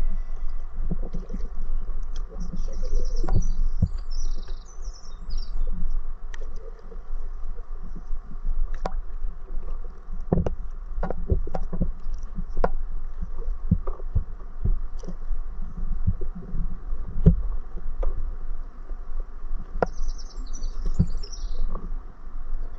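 Paddleboard paddle dipping in canal water: scattered splashes, drips and knocks over a steady low rumble. A bird chirps in short bursts a few seconds in and again near the end.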